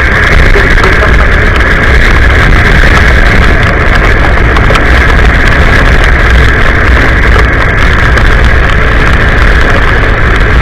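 Riding noise from a scooter on a rain-soaked road: wind rushing over the helmet-mounted mic and tyres running through standing water, a steady loud rush with a deep rumble underneath.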